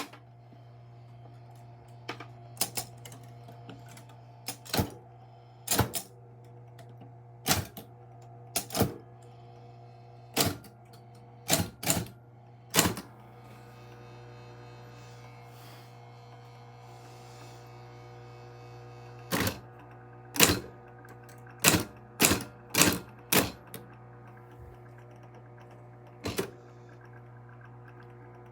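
Typewriter keys striking one at a time, unevenly spaced, with a pause of several seconds in the middle, over a steady low hum that starts with a loud click.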